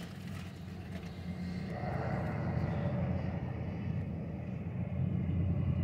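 Car engine running with a steady low rumble that grows somewhat louder from about two seconds in.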